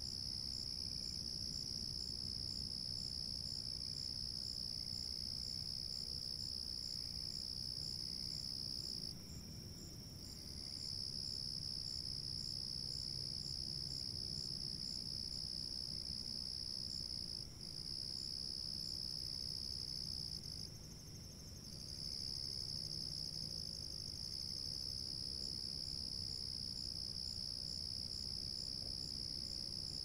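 Night insect chorus of crickets: a steady, high, continuous trill with a second insect chirping in regular pulses about twice a second above it. The trill dips out briefly about nine seconds in, again near eighteen seconds, and around twenty-one seconds.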